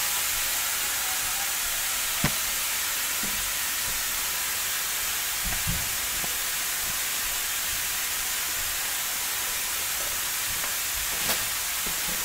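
Steady hiss of air escaping from the open valve hole of a deflating gym ball, with a sharp click about two seconds in and a soft low thump near six seconds.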